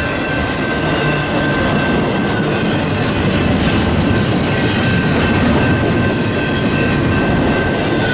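Freight train rolling past at speed, its wheels clattering over the rails with a steady high-pitched ring above the rumble.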